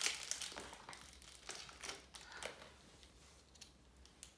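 Plastic toy wrapper crinkling as it is unwrapped by hand. The crinkling is densest in the first second, then thins to a few separate rustles and faint ticks.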